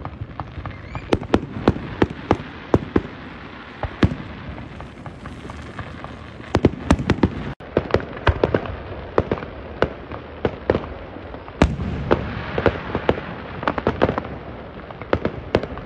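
Fireworks display: a rapid, irregular string of sharp bangs and crackling pops, several a second, over a steady low rumble.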